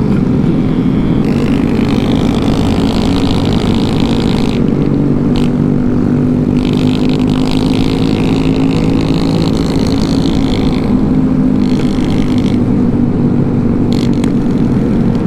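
Riding sound from a group of mini motorcycles and scooters cruising. The 2020 Honda Grom's 125 cc single-cylinder engine holds a steady note, with the other bikes' engines around it.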